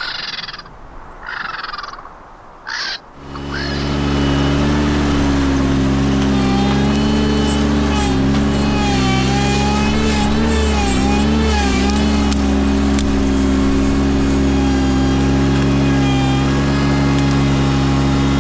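Ventrac compact tractor engine starting up about three seconds in, then running steadily at high speed, its pitch dipping and recovering a few times as it takes load.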